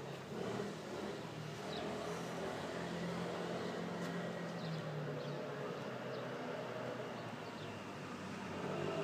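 City street ambience dominated by a steady engine hum.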